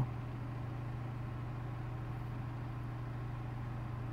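A steady, unchanging low hum, like a running motor or appliance.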